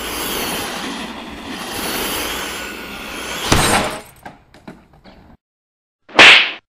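Intro sound effect: a rushing noise builds and then ends in a crash of breaking glass about three and a half seconds in, with pieces tinkling down for about a second and a half. After a short silence, a single loud burst of noise comes near the end.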